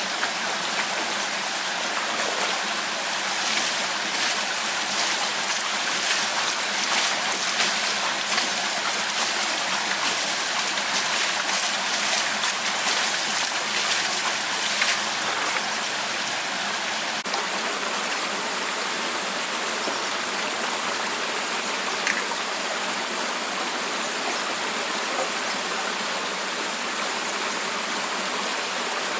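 Steady rush of flowing water, with small splashes in the first half.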